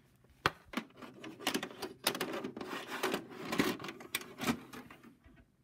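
VHS cassette handled and pushed into a VCR's loading slot: a run of plastic clicks, clatters and rubbing, busiest from about a second and a half in and stopping just before the end.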